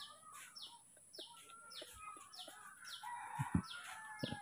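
Outdoor birdsong: a bird repeats short, falling chirps about twice a second, with fainter, longer held calls behind it. A few soft knocks come near the end.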